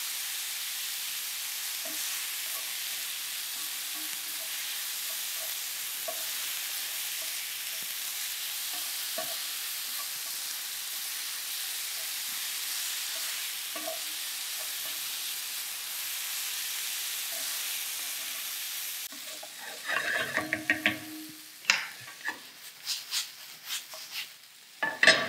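Sliced oyster and white mushrooms sizzling steadily in olive oil in a frying pan while a wooden spoon stirs them, browning in the hot fat. About nineteen seconds in the sizzle drops away and a quick run of clatters and knocks follows as the pan is handled and tossed.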